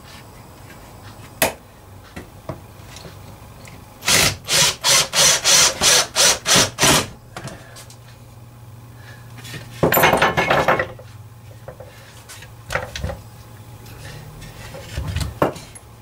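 Woodworking noises at the bench: a run of about nine quick, loud scraping strokes on wood, roughly three a second, then about a second's burst from a cordless drill, with a few odd knocks of wood on the bench.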